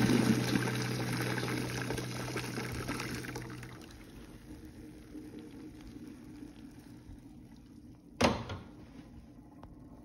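Hot water from boiled potatoes poured out of a pot through a perforated stainless steel colander, splashing and draining, tapering off over the first few seconds as the potatoes slide in. A single sharp knock about eight seconds in.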